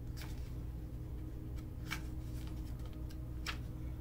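Low steady hum with three faint, sharp clicks about a second and a half apart.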